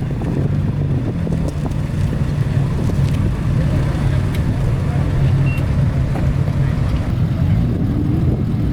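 A car engine idling steadily, its exhaust giving a low, even hum.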